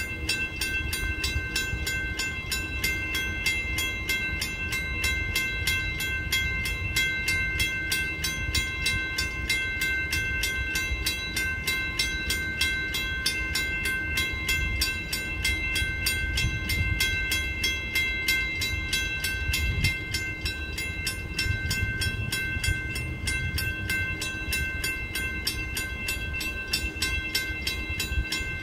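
Railroad grade-crossing warning bell ringing in a steady, rapid repeat with the gates down, over the low rumble of an approaching freight train's diesel locomotives. The crossing has activated minutes before the slow-moving train reaches it.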